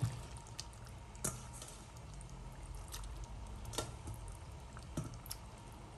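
Chunks of raw meat dropped by hand into a saucepan of hot, wet spiced onion masala: soft wet plops and squishes with a few scattered light clicks.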